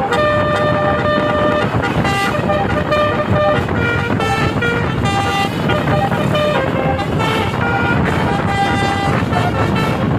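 An 18-note basuri telolet bus horn plays a tune of short held notes, one after another, over a steady noisy rumble.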